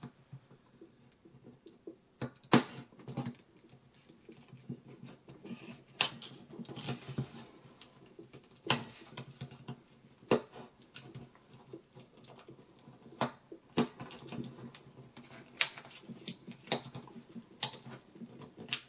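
Plastic blister packaging being cut and pried open with a small knife blade: irregular sharp clicks and crackles of the stiff plastic, with a couple of short scraping rustles.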